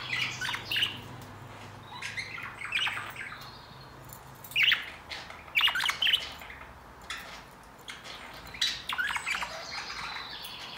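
Budgerigars chattering in short bursts of sharp squawks and chirps, coming every few seconds with quieter gaps between.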